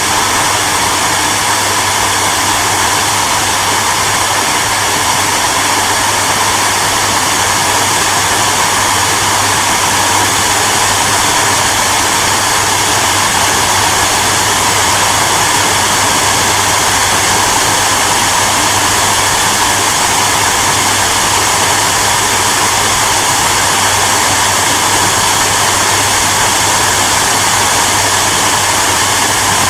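Hair dryer running steadily: a constant rush of blown air with a low hum underneath, unchanging throughout.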